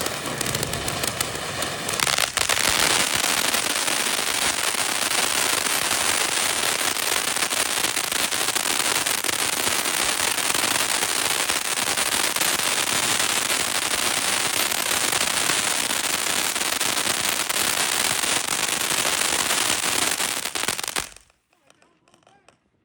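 Consumer firework cake going off in a dense, continuous crackle of small reports. It builds up about two seconds in, holds steady, and stops suddenly near the end.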